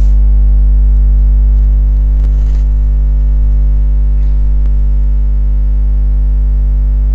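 Loud, steady electrical mains hum with a ladder of overtones, the buzz of a ground or power fault in the recording chain. A brief faint rustle of cloth being handled about two seconds in.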